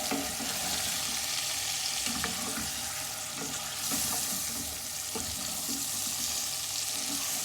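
Chicken curry base of onions, garlic and masala sizzling in hot oil in a pot, with a spoon stirring and scraping through it.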